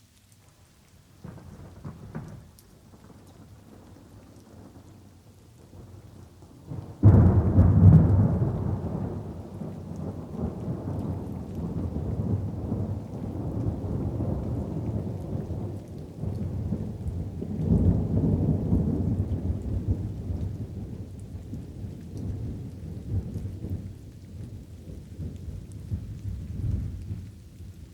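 Light rain falling steadily under rolling thunder: a faint rumble about a second in, then a sudden loud thunderclap about seven seconds in that rumbles on, swells again midway and slowly dies away.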